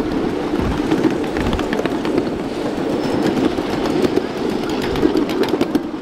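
A 7½-inch gauge ride-on miniature train running with a load of riders. Its steel wheels make a steady rumble on the rails, with frequent, irregular sharp clicks and clacks from the track.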